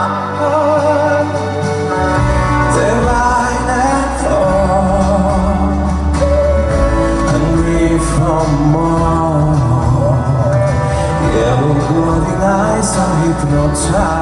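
Music of a pop ballad between sung lines, with a wavering melodic line carried over it; a deep bass and fuller accompaniment come in about two seconds in.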